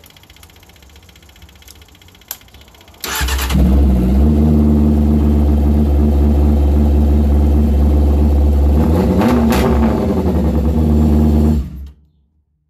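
A crash-damaged 1997 Honda CBR600F3's inline-four engine starts on the starter about three seconds in and idles steadily. There is a brief blip of the throttle near the end, and then it is switched off and cuts out suddenly. This is its first start since the crash, and it runs.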